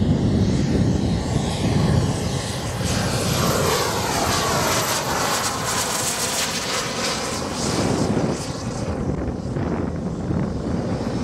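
Large-scale radio-controlled Avro Vulcan model flying past with a steady engine whine. A few seconds in, the engine note sweeps down in pitch as the model passes by.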